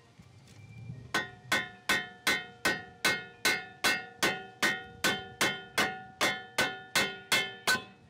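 Steady hammer blows on the rusty steel lower control arm and ball joint of a 2006 Mazda Tribute's front suspension, about eighteen strikes at a little over two a second, starting about a second in. Each strike is metal on metal and leaves a short ringing tone.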